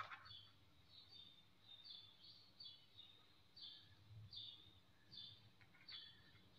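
A faint bird chirping repeatedly in the background: short, high, falling chirps, one or two a second, over near-silent room quiet.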